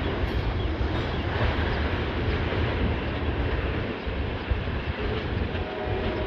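CSX freight train rolling by: a steady, loud rumble of diesel locomotives and rail cars on the track. The horn's chord comes back in faintly near the end.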